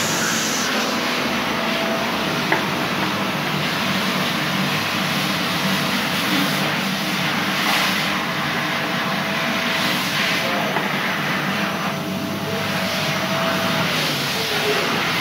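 Tap water running steadily from a single-lever mixer tap into a ceramic washbasin, with a hand passing in and out of the stream.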